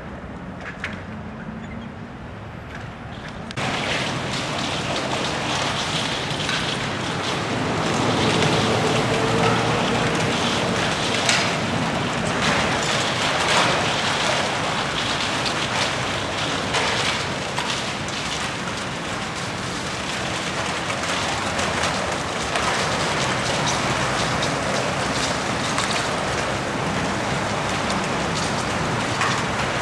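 Sheets of thin canal ice crackling and crunching against the steel hull of a laden motor barge as it breaks through, over the low steady hum of the barge's engine. The crackling gets suddenly louder about three and a half seconds in.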